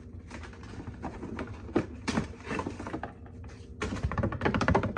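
Cardboard box and its packing being handled by hand: scattered rustles, taps and clicks, with a quick run of clicks about four seconds in.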